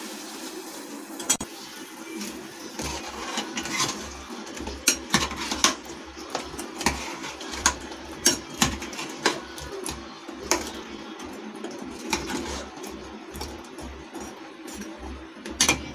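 Steel spoon clinking and scraping against an aluminium saucepan as fried khaja pastries are turned in warm sugar syrup: irregular sharp clinks, several a second at times, over a faint steady hum.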